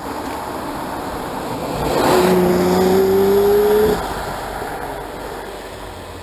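A car engine accelerating hard, its note climbing slightly for about two seconds and then cutting off abruptly as the throttle closes or a gear is shifted. Road noise from passing traffic fades away afterwards.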